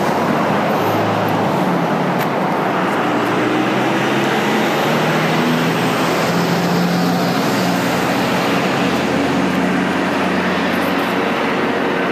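Steady road traffic noise with the low hum of a large vehicle's engine running.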